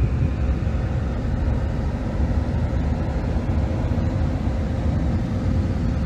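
Steady road noise from inside a vehicle moving at highway speed: a low rumble of tyres and engine with a faint steady hum.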